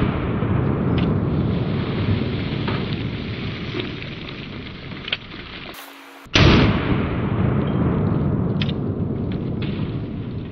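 Dan Wesson Supermag revolver firing .357 Maximum rounds: one shot right at the start and a second about six seconds in. Each is loud and trails off in a long, slowly fading rumble.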